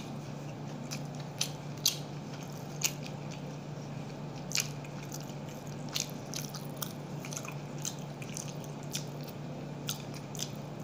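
A person chewing food close to the microphone: irregular wet clicks and smacks, a few of them sharper, over a steady low hum.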